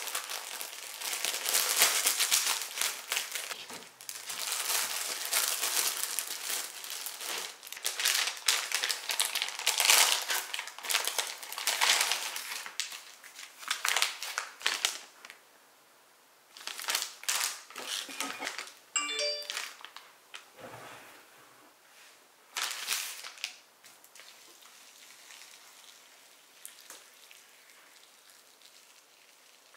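Plastic food packaging crinkling and rustling as packets are torn and cut open by hand, loud and dense for the first half, then in short separate bursts. In the last few seconds, a quieter steady pour of water from a kettle into a bowl.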